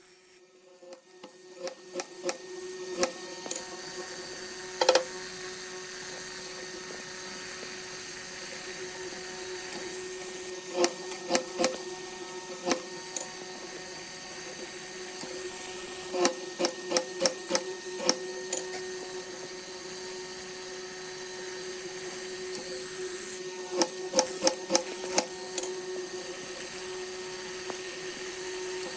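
Woodworking shop sounds: a steady hum runs under clusters of sharp clicks and taps, which come in quick runs several times.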